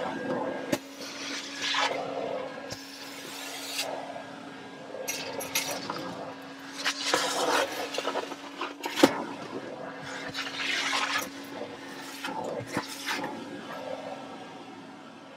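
Vacuum cleaner running with a steady hum, its nozzle scraping over surfaces and sucking up debris in irregular surges, with a sharp knock about nine seconds in.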